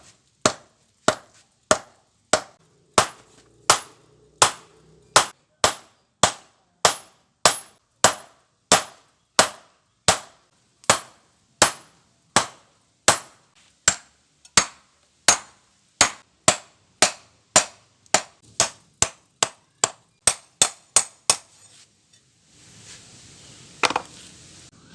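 Hand hammer striking hot steel on an anvil while forging a machete blade: a long run of ringing blows, about one and a half a second, that quicken shortly before they stop. Then a steady hiss and a single loud knock near the end.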